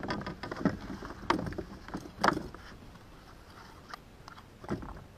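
Irregular knocks and clatters of handling against a plastic kayak hull while a small hooked fish is worked off a lure, the sharpest about a second and two seconds in, with another knock near the end.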